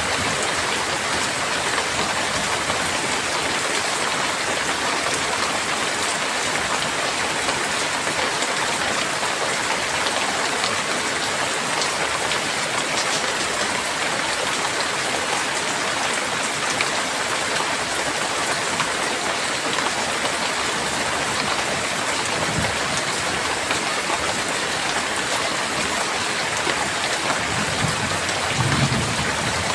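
Heavy rain falling steadily in a dense, even hiss. Low rumbles of thunder come in briefly about three-quarters through and again near the end.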